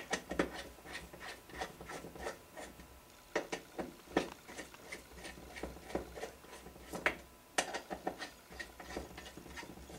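Hex driver turning the clutch shoulder bolts down on a 23cc two-stroke RC engine: irregular small metallic clicks and scrapes, a few louder ones, as the tool and bolts are worked a little at a time.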